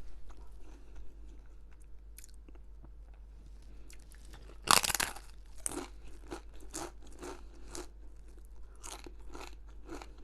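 A person eating crisp food close to the microphone: quiet chewing at first, then a loud crunching bite about five seconds in, followed by steady crunchy chewing at about two crunches a second.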